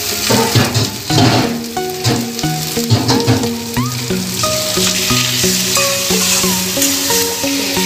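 A metal spatula stirring and scraping a thick beetroot and potato mash as it fries in an aluminium kadhai, with a steady sizzle. The spatula strokes are sharpest in the first few seconds. Background music with held notes runs underneath.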